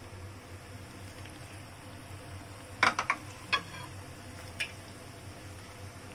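Spring rolls deep-frying in hot oil in a wok, a steady sizzle, with a few sharp clicks about three seconds in and one more a little later as chopsticks knock against the wok.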